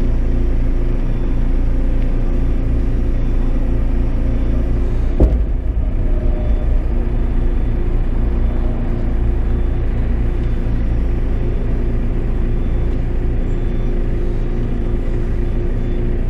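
Diesel engine of a JCB telehandler heard from inside its cab, running steadily as the machine drives slowly under the load of a lifted shipping container. A single sharp clunk about five seconds in.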